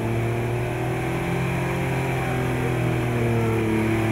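Four-wheel-drive vehicle's engine running steadily at low revs, its pitch wavering only a little.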